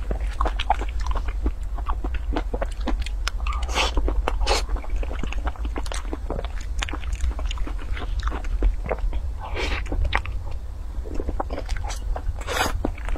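Close-miked eating sounds of a soft cream-filled crepe cake: irregular wet smacking and chewing with small clicks, a few louder smacks, and a metal spoon scraping the paper box, over a steady low hum.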